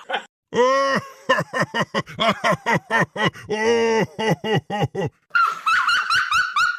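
Cartoon character voice sound effects: a quick string of short, pitched gibberish syllables, each bending up and down, then a faster, higher-pitched run of squeaky cries over the last second and a half.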